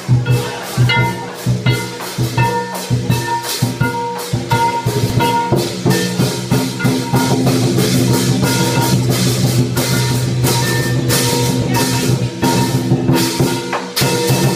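Lion dance percussion: a large drum beaten rapidly with cymbals crashing in a steady, driving rhythm over ringing tones.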